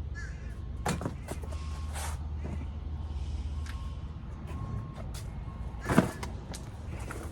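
A steady low rumble like an idling vehicle, with scattered knocks and clatter. The loudest is a single bang about six seconds in.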